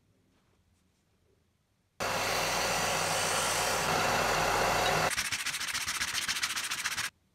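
A Scheppach BTS 800 belt and disc sander runs loud with a steady hum, grinding a chisel blade, for about three seconds, starting after a quiet opening. It cuts to a fast, even scraping: the chisel blade rubbed back and forth on an abrasive sheet, which stops abruptly near the end.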